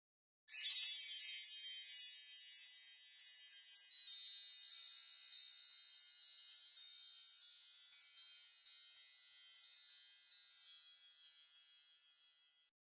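Bright metal chimes set ringing all at once about half a second in, many high tinkling tones that thin out into scattered strikes and fade away over about ten seconds.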